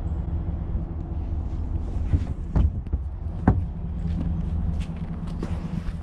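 A vehicle engine idling steadily with a low hum, with two sharp thumps about two and a half and three and a half seconds in and lighter knocks after them.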